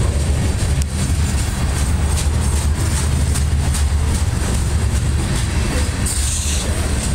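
Freight train of Herzog rock hopper cars rolling past close by: a steady low rumble with wheels clicking over the rail joints.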